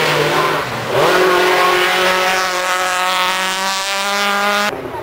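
Rally car engine at full throttle: a loud rush for the first second, then the engine note climbs and holds high and steady before cutting off abruptly near the end.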